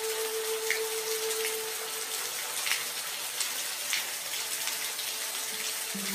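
Steady rain hiss with individual drops falling close by, now and then. A soft held music note fades out about two seconds in, and another note starts near the end.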